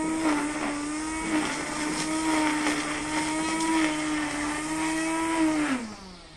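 Handheld brush cutter running at steady high speed while cutting grass, with scattered clicks from the cutting head striking stems and debris. Near the end the throttle is released and the motor's pitch falls as it winds down.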